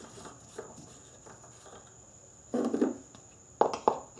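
Small plastic handling sounds as the engine's oil filler cap is taken off and a plastic funnel is set into the filler neck: faint ticks, a short rub past halfway, then two sharp knocks near the end.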